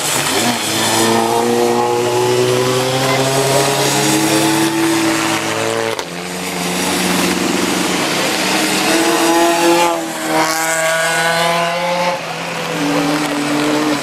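Car engines accelerating hard along a race track, their pitch climbing and dropping back at gear changes; about six seconds in, the sound cuts abruptly to another car doing the same.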